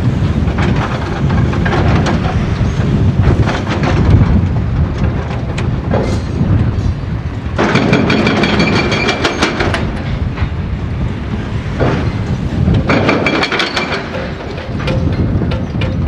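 Excavator-mounted hydraulic breaker hammering a concrete bridge deck: a fast, continuous rattle of chisel blows. About eight seconds in, and again about thirteen seconds in, the blows take on a higher ringing tone for a couple of seconds.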